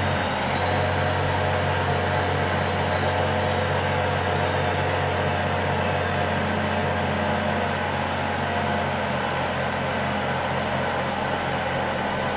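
2007 Chevy Trailblazer's 4.2-litre straight-six engine idling steadily, warm.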